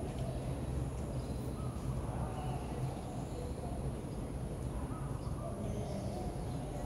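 Steady outdoor background noise, a low hum with faint, short calls in the distance scattered through it.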